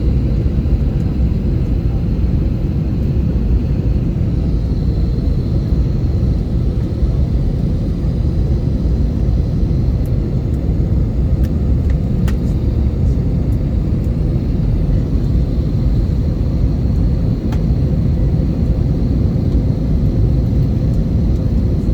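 Airplane's steady low rumble, with a faint steady hum and whine above it and a few light ticks.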